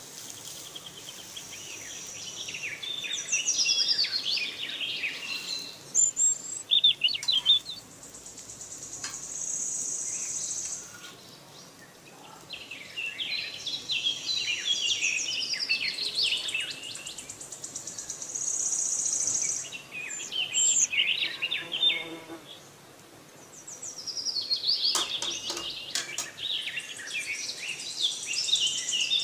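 Birds chirping and singing in repeated bursts of quick high calls, over a high steady hiss that comes and goes. A few sharp clicks about six seconds in and again about 25 seconds in.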